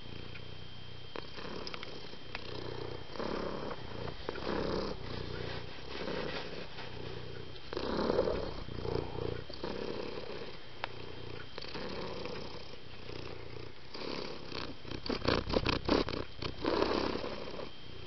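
Cat purring, swelling and fading with each breath about once a second. Near the end comes a short run of quick clicks or rustles.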